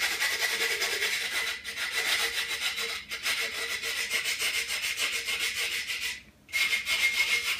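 Sanding sponge rubbed on the cut glass edge of a wine bottle: rapid scraping strokes with brief pauses, smoothing the sharp rim left after breaking the bottle.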